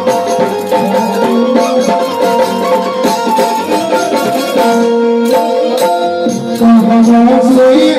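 Harmonium playing held reed chords and a melody, with hand percussion keeping a steady beat; the music grows a little louder near the end.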